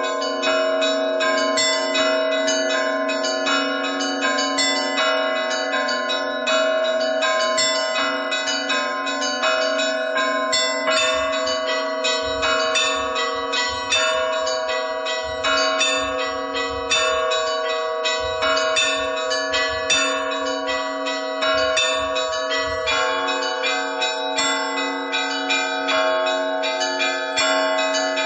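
Russian Orthodox church bells ringing continuously, several bells struck together: quick repeated strikes on the higher bells over the steady, lingering tones of the deeper ones.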